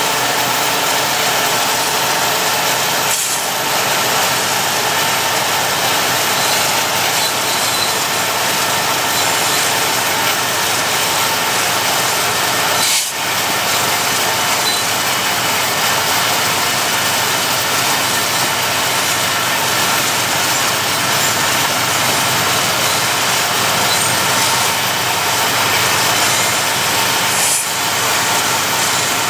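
Steady, loud running noise of a vehicle pacing a moving freight train, road and wind noise mixed with the BNSF SD70MAC diesel-electric locomotives running alongside. It drops out very briefly three times.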